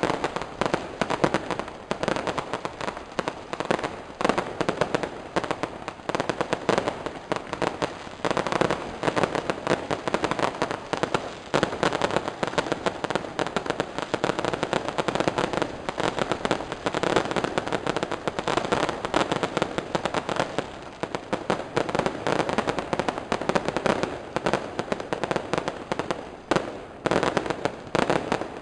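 Fireworks and firecrackers going off in a dense, continuous barrage of rapid sharp bangs and crackles, with no let-up.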